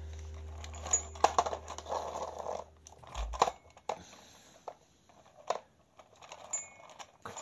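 Plastic toy motorcycle handled and pushed on a hard floor: scattered sharp clicks and knocks with short rattling scrapes, busiest between about one and three seconds in.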